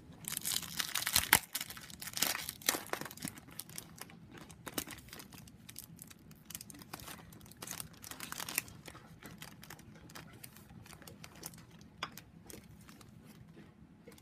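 Plastic cellophane packaging of a card kit being torn open and crinkled by hand, most busily in the first few seconds and again midway, then dying down to light rustling.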